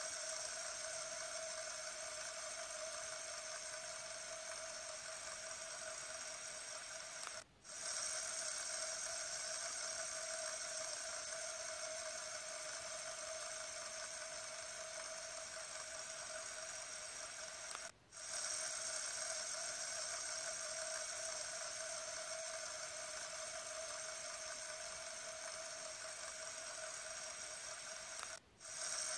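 A fidget spinner spinning fast on its centre ball bearing, giving a steady whirring hum. The hum cuts out for a split second three times, about every ten seconds, and comes straight back.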